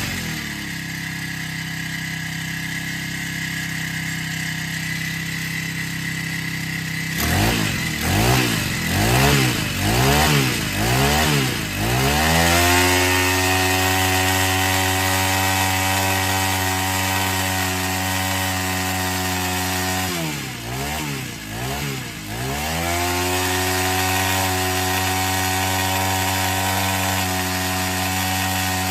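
Four-stroke brush cutter engine running after its starting-trouble repair. It idles steadily, is revved up and down about five times, then is held at high revs, drops back briefly twice just past the middle, and runs at high revs again.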